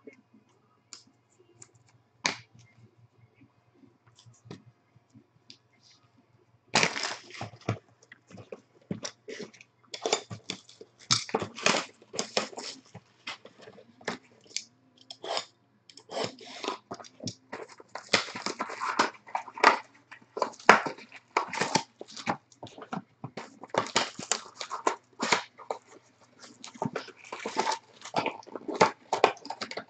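Trading-card packaging being handled: a cardboard hobby box opened and its foil-wrapped packs pulled out, crinkling and crackling irregularly from about seven seconds in. Before that there are only a few light clicks.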